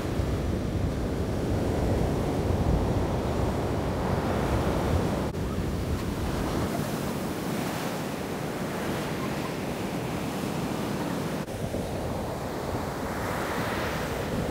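Ocean surf breaking and washing up a sandy beach in a steady rush, with wind rumbling on the microphone, strongest in the first half.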